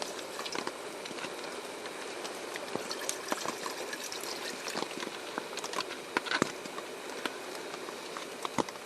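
Rain falling steadily on a tarp shelter overhead, a continuous hiss with many irregular louder drops and drips landing on it.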